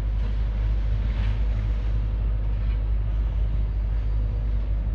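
Diesel engine of a tracked excavator running with a steady low rumble.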